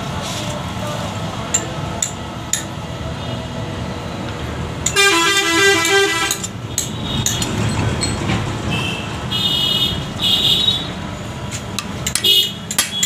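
Steady rumble of passing street traffic, with a vehicle horn warbling between two notes for about a second and a half about five seconds in, and a shorter high-pitched tone in two pieces around nine to ten seconds. A few light clicks are scattered through it.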